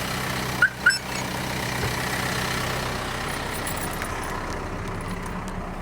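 2019 Hino 195DC diesel engine idling steadily after a remote start. Two short high chirps sound close together just under a second in.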